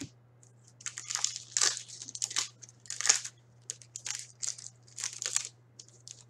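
Foil wrapper of a hockey card pack being handled and torn open: a run of irregular crackling rustles, starting about a second in.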